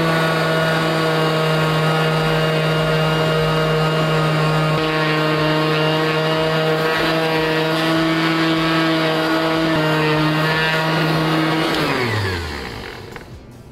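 Ryobi random orbital palm sander running steadily at full speed, sanding cured epoxy flooring, then switched off about twelve seconds in and winding down with a falling pitch.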